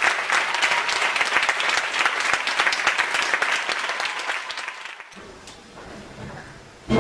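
Theatre audience applauding, the clapping dying away about five seconds in. An orchestra starts playing right at the end.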